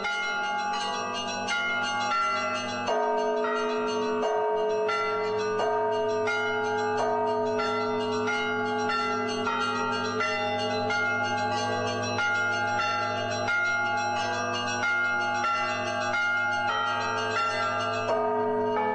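Several monastery church bells rung together in a continuous peal, fresh strikes every half second or so ringing over one another above the steady hum of a deep bell.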